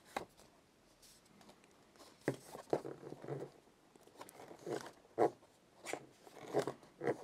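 Hands handling a paper booklet and cardboard box packaging: irregular bursts of rustling and scraping with a few light knocks, the loudest of them about five seconds in.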